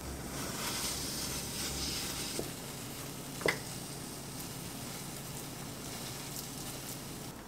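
Egg roll sizzling in a rectangular omelette pan as a wooden spatula rolls and presses it into shape; the sizzle is strongest in the first two seconds. A sharp knock of the spatula against the pan about three and a half seconds in.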